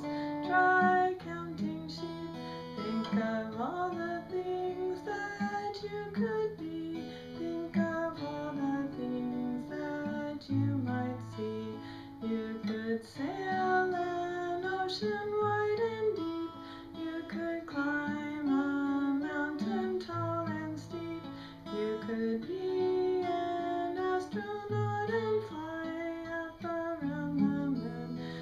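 A woman singing a lullaby, accompanying herself on acoustic guitar.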